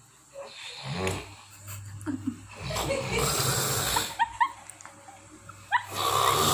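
A person asleep sitting up, snoring: rasping breaths, a short one about a second in, a long loud one through the middle, and another near the end.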